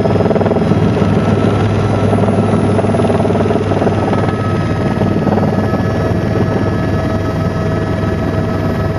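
Helicopter in flight: a steady, loud drone with a fast rotor beat and a constant whine.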